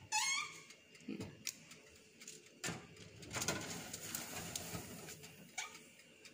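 Cake tin being slid onto the wire rack of a built-in oven: a short rising squeak right at the start, then a few knocks and a stretch of metal scraping as the tin is pushed in.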